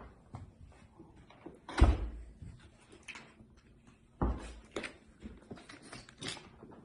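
Thumps and knocks of a heavy electronic dice board being handled and set down to be weighed, with two loud, deep thumps about two seconds in and again about two and a half seconds later, and lighter knocks between.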